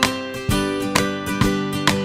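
Background music, a guitar-led track with a steady beat, notes striking about twice a second.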